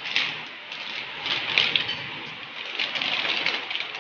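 Balbacua broth boiling hard in a large aluminium wok, a steady bubbling and spattering with small irregular pops.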